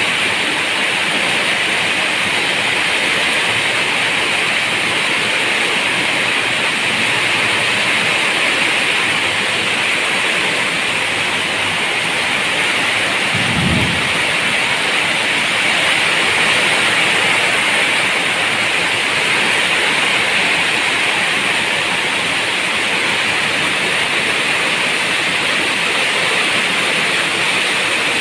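Steady rain falling, an even hiss at a constant level, with one brief low thump about halfway through.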